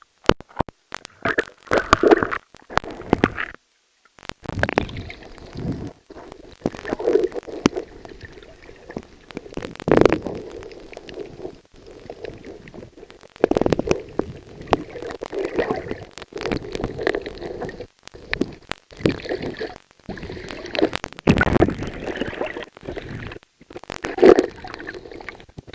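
Muffled water gurgling and sloshing around a camera held underwater, rising and falling every couple of seconds, with scattered sharp clicks and knocks.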